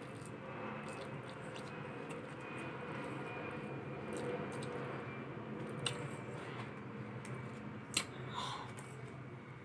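A person chewing and eating food close to the microphone, with wet mouth sounds over a steady low hum. A few sharp clicks stand out, the loudest about eight seconds in.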